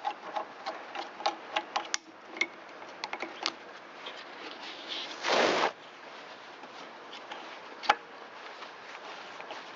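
Ratchet clicking in a quick, uneven series as loose quarter-inch-head screws are backed out of a small engine's intake pipe. About five seconds in there is a brief burst of rushing noise, and a single sharp tap comes near eight seconds.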